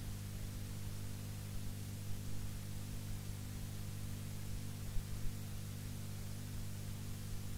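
Steady low electrical hum with several unchanging overtones, over a constant layer of hiss; no speech.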